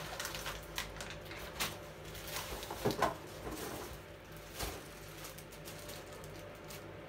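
Clear plastic wrapping and cardboard packing rustling and crinkling, with scattered light knocks and a brief scrape about three seconds in, as a plastic-bagged animatronic head is lifted out of its box.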